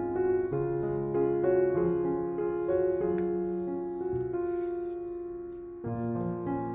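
Background piano music, a slow succession of held notes and chords.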